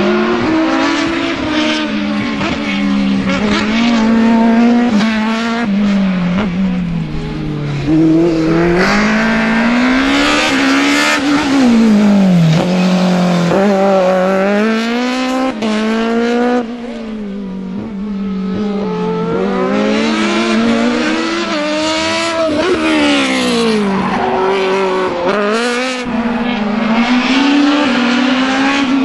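Open-cockpit sports prototype race car's engine, revving up hard and dropping back again and again as the car accelerates out of corners and brakes into the next. The sound dips for a moment about two-thirds of the way through.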